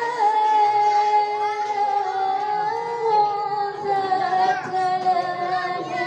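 A girl singing a slow, melodic chant into a microphone, holding long notes that bend and glide slowly with small ornaments, in the manner of a Qur'an recitation or devotional song.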